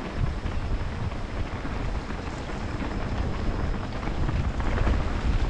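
Wind rushing over the microphone of a moving motorcycle, over a low rumble of engine and road noise, growing a little louder near the end.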